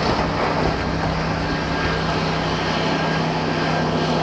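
Steady, loud rushing noise as the dust cloud from a 20-story tower's implosion rolls over and engulfs the camera position, with a steady low hum underneath.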